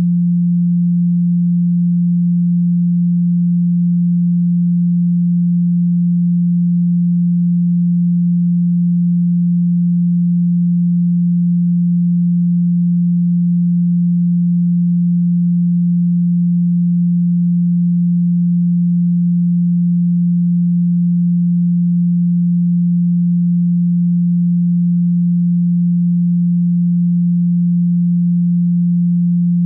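A steady pure 174 Hz tone: one unchanging low hum at constant loudness, with nothing else.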